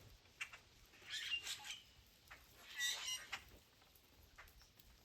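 Blackbirds at a bird feeder calling in short bursts, three main clusters of high, chattering calls with a few single notes between.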